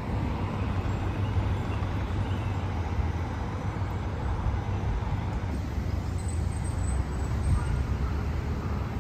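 Steady city street traffic noise with a low rumble.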